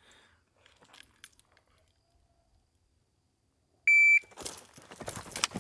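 Shot timer's start beep: one loud, steady high-pitched beep lasting about a third of a second, about four seconds in. Quick footsteps and scuffing on dirt follow right after as the shooter moves off.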